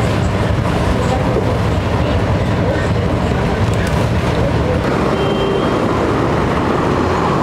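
Steady road traffic noise: motor vehicle engines running with a low rumble.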